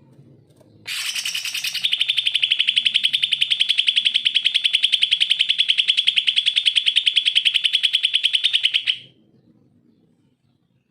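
Male cucak ijo (greater green leafbird) singing a loud, fast trill of evenly repeated notes at about ten a second. It opens about a second in with a harsh, scratchy note, holds the trill steadily for about seven seconds and breaks off abruptly.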